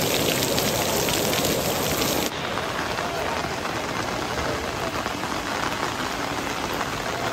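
Heavy rain pouring onto wide stone paving, a steady hiss of falling rain. About two seconds in, the sound cuts to a quieter, duller rain.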